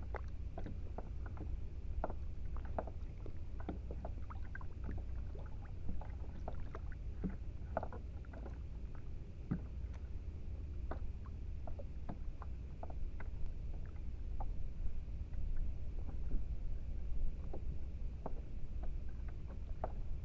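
Water lapping and splashing against a fishing kayak's hull: many small, irregular splashes and ticks over a steady low rumble.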